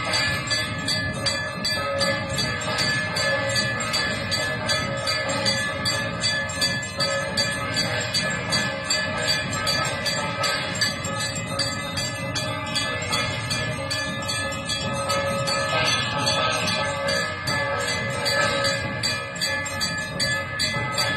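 Temple bells ringing continuously, rapid clanging strikes over several steady ringing tones.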